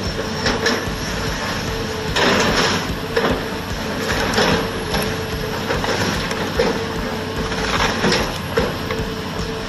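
John Deere excavator running steadily while its bucket crunches through the wreckage of a demolished house, with irregular cracks and crashes of breaking wood and debris; the loudest crash comes about two seconds in.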